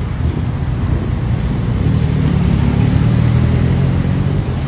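BMW S1000RR's inline-four engine running at low revs with a steady, low exhaust rumble, a little louder around the middle as the bike creeps forward.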